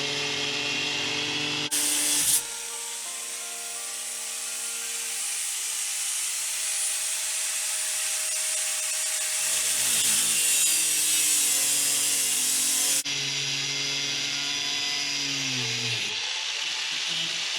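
Power saw cutting through a shelf, its motor running steadily under the hiss of the cut, with the pitch shifting as it bears down. There is a brief louder burst about two seconds in, and the sound changes abruptly near thirteen seconds.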